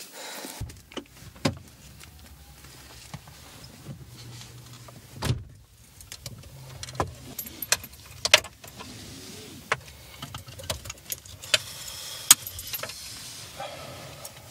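Parked car with people inside: a low steady hum under scattered sharp clicks and small knocks, with a louder thump about five seconds in.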